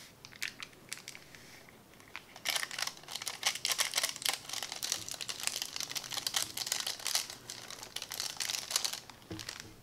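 Crinkling of a plastic-foil soup base sachet as it is squeezed and shaken to empty the powder into a bowl: a few light crackles at first, then dense crinkling from about two and a half seconds in until near the end.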